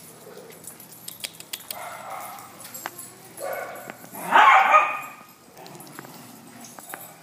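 Dogs barking: a couple of shorter barks, then a louder, longer bark about four seconds in that rises in pitch at its start. Light scattered clicks can be heard between them.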